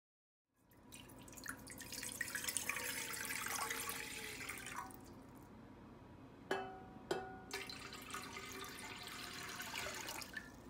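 Water running for a few seconds, then two sharp clinks of a glass jug against a stainless steel pot, then water pouring from the jug into the empty pot.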